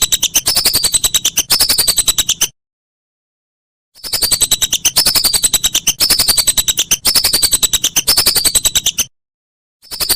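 Whistling duck (belibis) calls: a string of high, fast-pulsed whistles, each falling in pitch over about a second and run together in groups. There are abrupt, completely silent gaps between the groups, as in an edited, looped recording.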